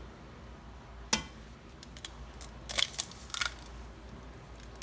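An egg cracked with one sharp tap against a hot, dry nonstick pan about a second in, then a few short crackling clicks as the shell is pulled open and the egg drops into the pan.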